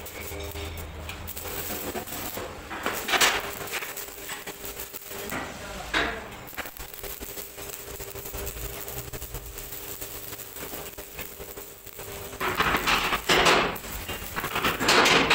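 Arc welding on the steel drum of a concrete mixer, over a steady low hum. There are two short sharp sounds in the first half, and near the end comes the loud crackle of the welding arc.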